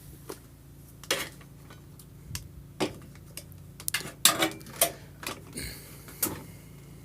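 Metal chains clinking and rattling as they are handled, in irregular clanks with a cluster of them about four seconds in, over a faint steady hum.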